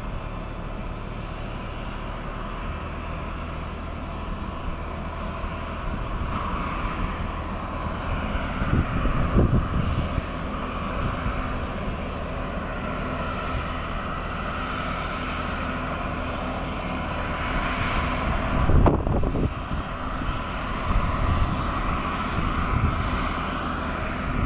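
Steady hum and whine of a Boeing 767-300ER airliner standing on the apron. A new low tone joins about 3 s in and a higher one about 8 s in. Gusts of wind hit the microphone, the strongest about 19 s in.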